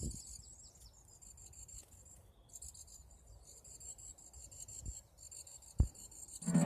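Faint insects stridulating: a continuous high-pitched, rapidly pulsing trill. A sharp knock sounds near the end.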